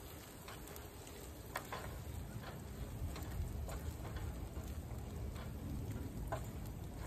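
Fried rice sizzling in a frying pan as it is stirred, with scattered irregular scrapes and taps of the spatula against the pan.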